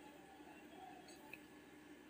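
Near silence: a faint steady hum with a couple of soft ticks about a second in, from a large kadai of cream boiling down into ghee over a gas burner.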